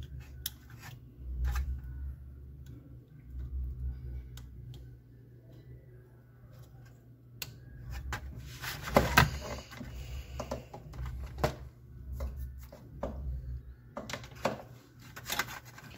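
Handling noise from a satellite receiver's power-supply circuit board and wiring being moved about inside its open sheet-metal case: scattered light clicks and knocks, the loudest cluster about nine seconds in.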